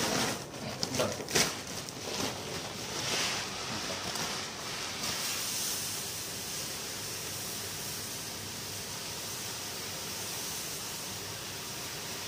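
Uncooked rice poured from a plastic sack onto a carpeted floor: a steady hiss of grains streaming onto a growing pile. A few irregular rustles and knocks from handling the sack come in the first few seconds.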